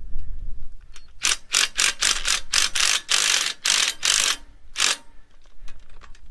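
Ratchet wrench working a quarter-20 bolt in about a dozen quick clicking strokes, roughly three a second, that stop about five seconds in.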